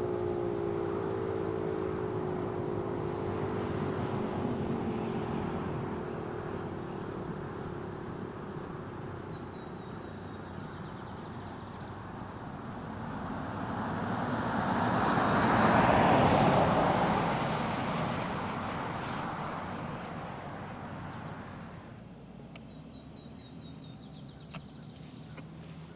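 Federal Signal 508-128 warning siren winding down at the end of its cycle, its falling tones fading out within the first few seconds. Then a vehicle passes on the road, building to the loudest sound about two-thirds of the way through and fading away, with a couple of short bird chirps.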